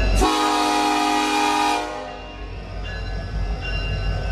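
Locomotive air horn sounding one blast of under two seconds, several notes at once, starting suddenly a moment in and then fading over a steady low rumble.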